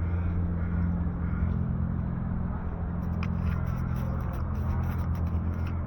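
Steady low hum of road traffic, with a car engine's even drone, and light clicks and scrapes from about halfway.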